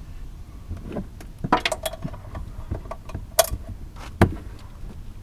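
Ratcheting gear wrench on the top nut of a GMC Acadia's rear engine mount, being worked to break the bolt loose. Several separate sharp metal clicks and clanks, the loudest about four seconds in.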